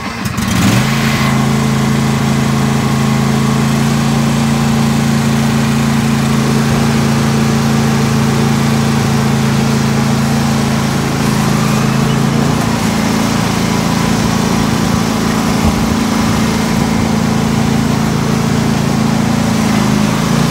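Craftsman YT3500 riding mower's 22 hp V-twin engine running, coming up to a steady speed within the first second after starting. Its note shifts a little about twelve seconds in.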